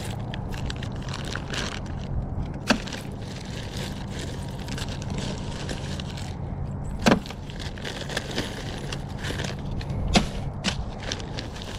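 Scattered clinks and knocks of scrap being handled and shifted, with three sharp knocks standing out, over a steady low hum.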